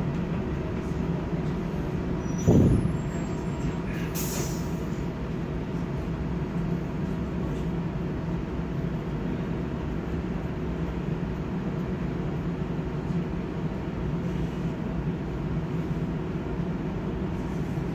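Inside a trolleybus standing still: a steady hum of its running equipment, a dull thump about two and a half seconds in, and a short hiss of air about four seconds in.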